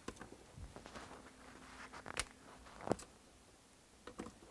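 A few faint clicks and taps as a wall receptacle and its copper wires are handled and fastened at the electrical box. The clearest clicks come about two and three seconds in.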